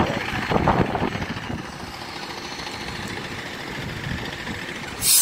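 Single-deck city bus engine running at a stop, with steady street traffic noise and a short, loud hiss just before the end.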